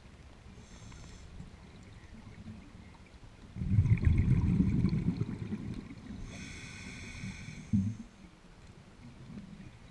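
A scuba diver breathing through a regulator, heard underwater. There is a short hiss of inhalation, then a loud rush of exhaled bubbles for a couple of seconds from about three and a half seconds in, then another inhalation hiss.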